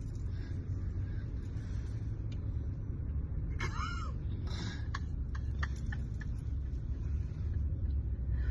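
Low, steady snoring rumble. A brief high squeak rises and falls about three and a half seconds in, followed by a few light clicks.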